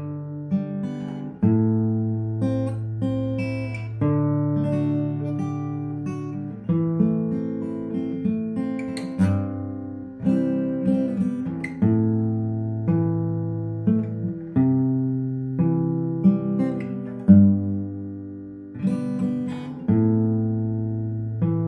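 Instrumental acoustic guitar music: picked chords struck every second or so and left to ring and fade over low bass notes.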